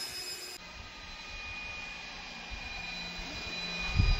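Twin electric motors and propellers of a radio-controlled Freewing OV-10 Bronco model plane flying overhead, a steady whine. A brief low thump near the end.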